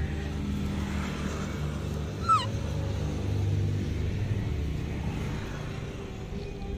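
A baby monkey gives one short squeak, falling in pitch, about two seconds in, over a steady low rumble.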